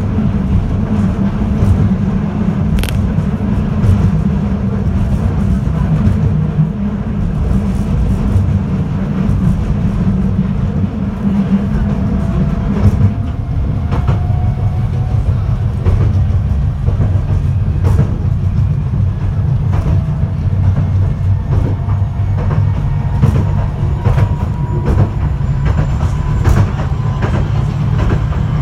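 Running noise inside a Fukui Railway F1000-series low-floor tram at speed: a steady low rumble of wheels and running gear, with scattered clicks from rail joints and a faint whine in the second half.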